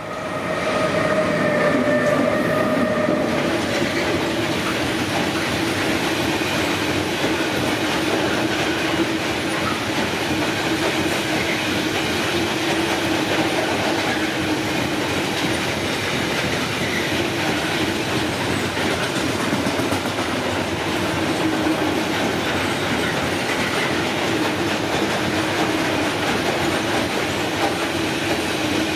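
Freight train of loaded hopper wagons rolling past close by: a steady heavy rumble of wheels on rail, with rhythmic clatter. It swells over the first two seconds, and a pitched tone rings through the first three.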